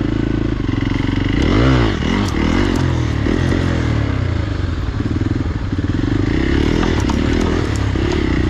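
Hero XPulse single-cylinder motorcycle engine running under changing throttle, its pitch wandering up and down, with a quick rev up and back down about a second and a half in.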